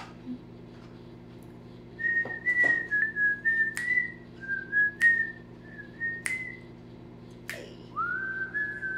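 A woman whistling a tune of short notes, beginning about two seconds in, with sharp clicks in time about every second and a quarter. Near the end one whistled note slides upward and is held.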